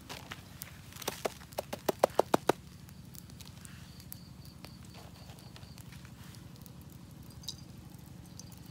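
Knife chopping by hand: a quick run of about eight sharp knocks in a second and a half, the last few the loudest.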